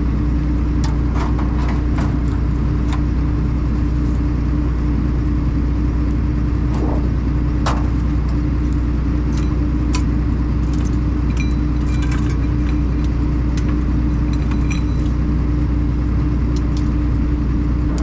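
Combine harvester engine running steadily, with scattered clicks and rattles over it.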